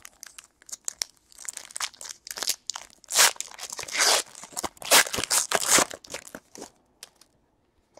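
Foil wrapper of a Panini Contenders trading-card pack being torn open and crinkled by hand: a run of quick crackling tears and rustles, densest in the middle few seconds.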